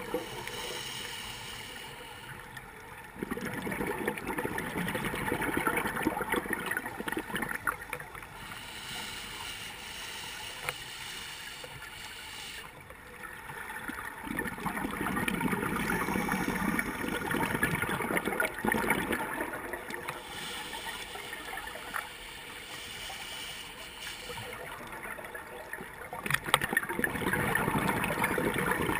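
Scuba regulator breathing underwater: three long rushes of exhaled bubbles gurgling, a few seconds each, separated by quieter hissing inhalations.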